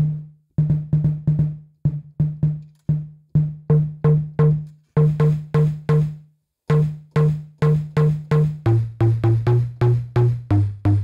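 Short, plucked bass notes, pitched out of a sampled data-centre sound and played live on pads and keys, repeating about three times a second in short phrases. About three-quarters of the way through, the line drops to a lower note.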